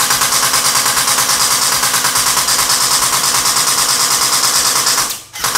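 Double Bell 74U gel blaster firing on full auto, its electric gearbox cycling in a rapid, even stream of shots. The stream stops briefly about five seconds in and starts again just before the end.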